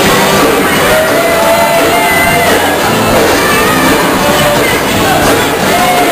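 Live zydeco-style band playing dance music with accordion, rubboard, electric guitars and drums, a voice singing over it, sounding through a large hall.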